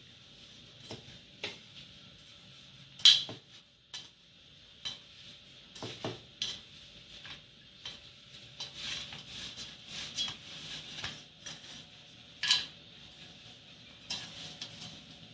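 Oily flour pastry dough being mixed and kneaded by hand in a stainless steel bowl: irregular soft scraping and clicking of hand and dough against the metal, with two sharper clinks on the bowl, about three seconds in and about twelve seconds in.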